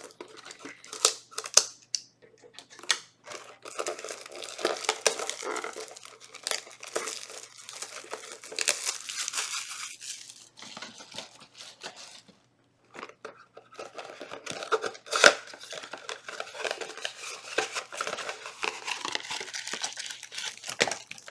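Trading-card box packaging being torn open and handled: cardboard ripping, crinkling and small clicks in irregular bursts, with a brief pause about halfway.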